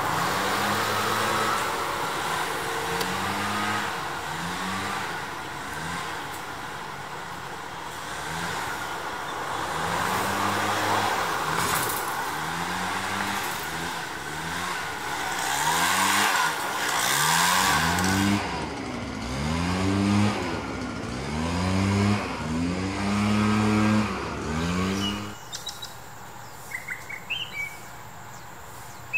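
Leaf blower running with a rush of air, its small engine revving up and down again and again, the swells coming louder toward the end. It cuts off suddenly near the end, leaving a few short bird chirps.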